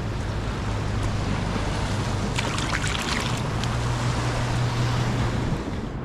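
Wind on the microphone and ocean surf against a seawall, with a low steady hum underneath. About two and a half seconds in comes a short patch of clicks and rattles lasting about a second.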